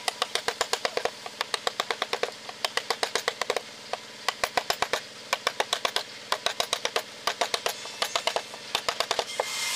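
Wooden mallet tapping a carving chisel into wood: rapid sharp knocks, about five or six a second, in runs with brief pauses between them.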